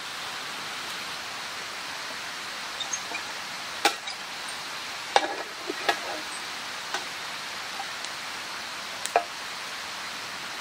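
A steady hiss with a few light knocks and clicks scattered through it, the sharpest about four and five seconds in.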